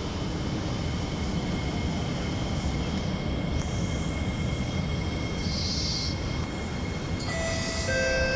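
Alstom R151 metro train standing at a station with its doors open: a steady hum with a thin high whine from the stationary train's equipment. About seven seconds in, a chime of steady electronic tones starts, the door-closing warning.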